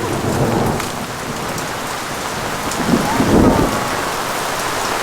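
Heavy rain pouring steadily in a thunderstorm, with a short, low rumble of thunder about three seconds in.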